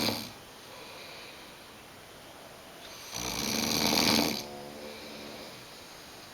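A sleeping person snoring: the tail end of one snore at the start, then one full snore about three seconds in that lasts just over a second.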